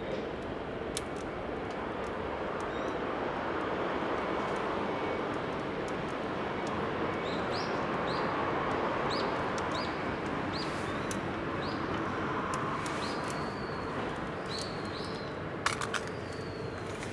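Wood fire burning in a stainless-steel Winnerwell Nomad View tent stove, with scattered crackles and pops over steady background noise. Small birds chirp several times in the middle and near the end, and a couple of sharper clicks come just before the end.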